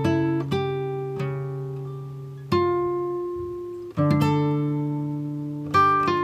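Background music: slow plucked acoustic guitar, single notes and chords left to ring out.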